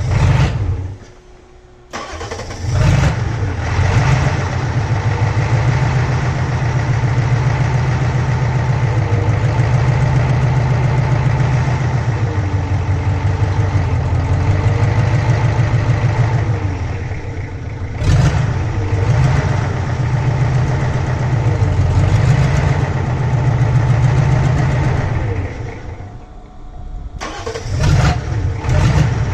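Ford 6.9L V8 diesel engine starting about two seconds in and running, its speed rising and falling as the newly fitted clutch and transmission are tested for engaging and disengaging. The sound drops briefly near the end, then the engine picks up again.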